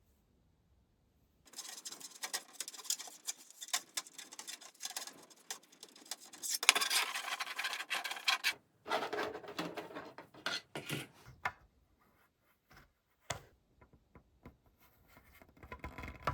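Rubbing and scraping as an air purifier is cleaned by hand. It starts about a second and a half in and is loudest around the middle, then thins into scattered clicks and short scrapes.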